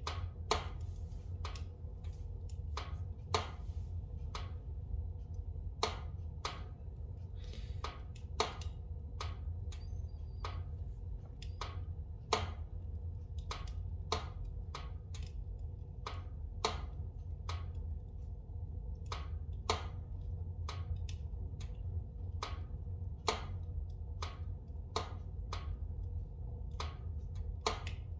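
Spruce logs burning in a fireplace, crackling with irregular sharp pops, some louder than others, over a steady low rumble.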